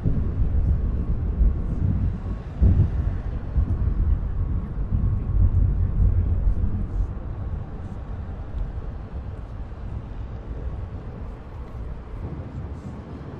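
A deep rumble, loudest in the first seven seconds and then slowly fading away.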